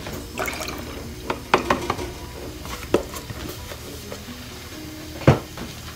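Milk pouring from a carton into a stainless steel pot as the carton is emptied, followed by handling clicks and knocks, the loudest a single thump about five seconds in.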